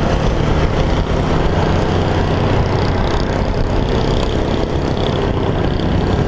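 Motorcycle engine running at a steady pace under way, with a dense rush of wind and road noise.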